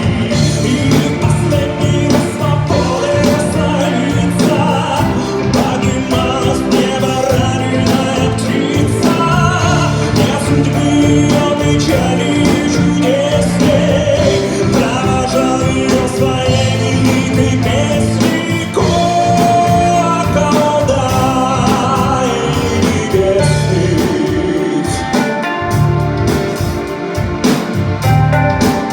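A man singing a ballad in Russian over band accompaniment in a live performance.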